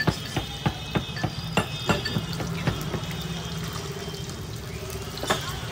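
Pakodas sizzling in hot oil in a large kadhai, being re-fried to finish the half-fried batch. A metal slotted spoon knocks and scrapes against the pan about three times a second for the first few seconds. After that the sizzle runs on steadily, with one more knock near the end.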